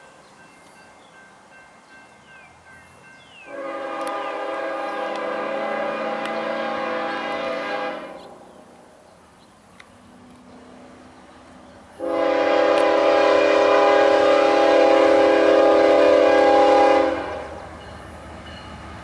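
CSX GE ES44AH diesel locomotive's air horn sounding two long blasts, a chord of several steady notes, for the grade crossing ahead. The second blast is louder as the train comes closer, and the low rumble of the approaching train follows near the end.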